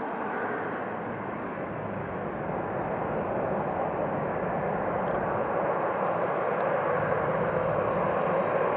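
Boeing 747-400's four General Electric CF6-80C2 turbofans at taxi power: a steady jet rumble and hiss that grows gradually louder as the airliner turns.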